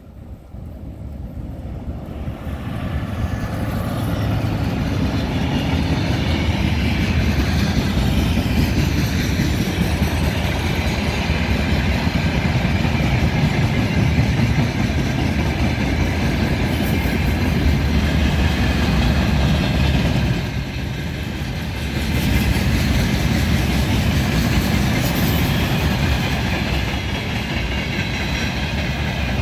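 Siemens ER20CF Eurorunner diesel-electric locomotive growing louder over the first few seconds as it approaches, then a long freight train of open wagons rolling past in a steady rumble of wheels on rail. The sound dips briefly about twenty seconds in.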